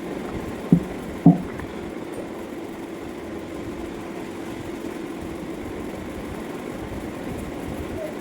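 A steady low hum with two short, sharp knocks about a second in.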